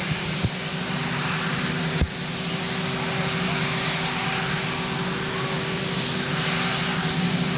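Marine One helicopter's turbine engines running on the ground: a steady rushing noise with a low hum and a thin high whine. A single sharp knock about two seconds in.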